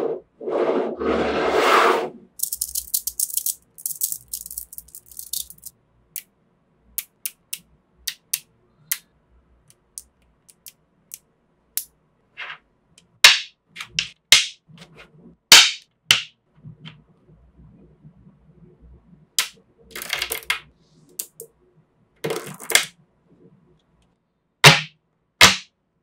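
Small neodymium magnetic balls clicking, rattling and snapping together as they are handled, pressed into a flat sheet and built into cubes: a dense rattle of loose balls at the start, then separate clicks and sharp, louder snaps at uneven intervals.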